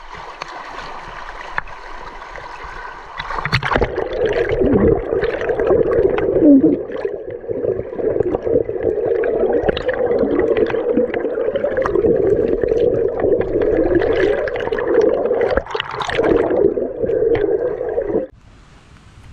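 Shallow rocky river water flowing and splashing, heard at the surface for the first few seconds, then from about three and a half seconds in as a muffled, churning gurgle of the current as heard underwater, full of crackles and bubbles. It cuts off abruptly about a second before the end.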